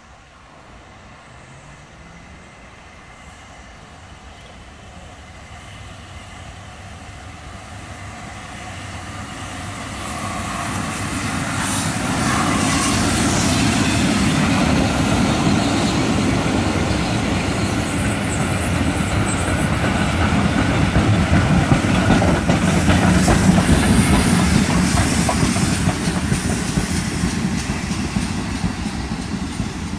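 Heritage train drawing closer and passing nearby, its wheels clattering over the rail joints. The sound builds steadily over the first dozen seconds and stays loud as the coaches go by.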